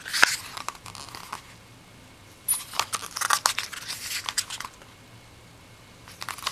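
Glossy paper pages of a hardbound book being turned by hand: two bursts of paper rustling and clicking, a short one at the start and a longer one about two and a half seconds in, with quiet between.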